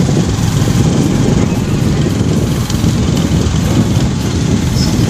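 Motorcycle under way: the engine running beneath a heavy, steady rumble of wind on the microphone.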